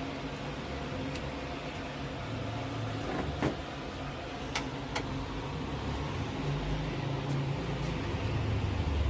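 Steady low mechanical hum, with a few short clicks near the middle.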